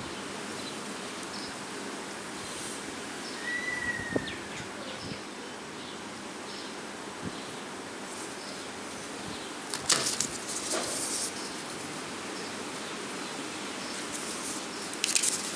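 Steady outdoor background hiss with quiet handling noises: a few light clicks, a single short chirp a few seconds in, and brief paper rustling about ten seconds in and again near the end as a folded instruction booklet is picked up.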